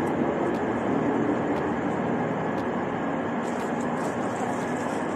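Steady low rumble of a train in a station, with a few faint clicks.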